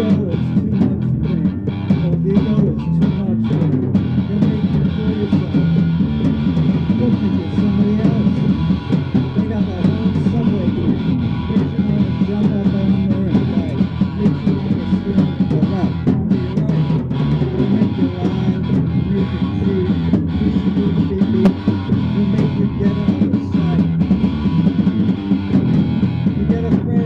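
Live rock band playing an instrumental passage: electric guitar over a drum kit, dense and steady throughout.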